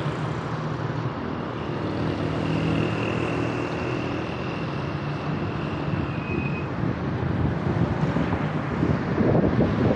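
Road traffic heard from a moving vehicle: engine hum and tyre noise, with a thin high whine for a few seconds midway. Wind buffets the microphone near the end.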